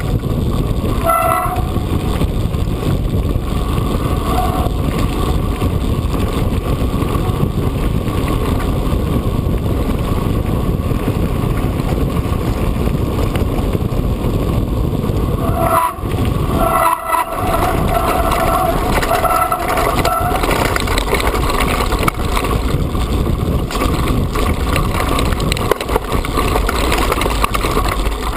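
Mountain bike riding on a loose gravel and stone track: tyres crunching and rumbling, with the bike rattling and wind on the helmet or bike camera's microphone. A brief faint whine comes now and then, loudest for a few seconds about two-thirds of the way through.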